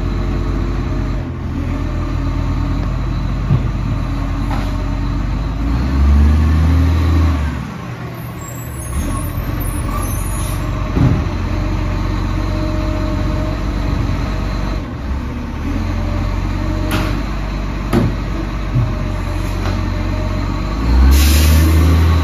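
Diesel engine of an Iveco side-loader garbage truck running steadily as the truck creeps closer, with louder surges about six seconds in and near the end. A few short sharp clunks come through in the second half.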